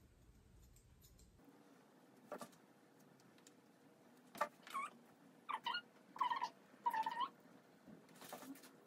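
Bichon Frise dog whining while being groomed: four or five short, high cries in quick succession in the middle of the clip, each bending down in pitch at its end. There is a light sharp snip near the end.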